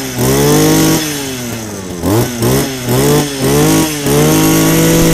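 Small gasoline engine of a portable water pump being test-run, revved up and down in several quick throttle blips and held at high revs in between; it runs crisp and clean.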